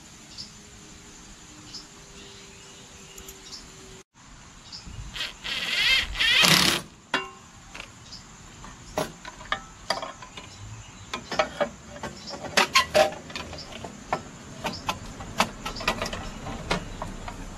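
Small clicks and knocks of plastic and metal parts being handled and fitted as a snowblower's bracket and engine cover go back on, with crickets chirping steadily. A loud rushing noise lasts about two seconds a third of the way in and cuts off abruptly.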